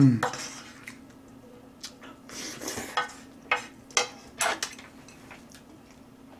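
Chopsticks tapping and scraping against a frying pan as noodles are stirred and picked up from it: a few sharp clicks spread out, coming closer together in the second half.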